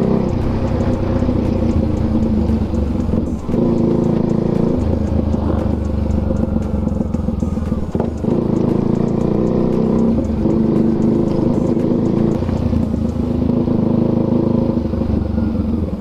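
Sport motorcycle engine running while riding, its note shifting several times.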